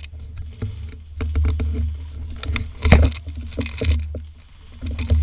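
Irregular sharp clicks and knocks, some in quick clusters, over a steady low rumble.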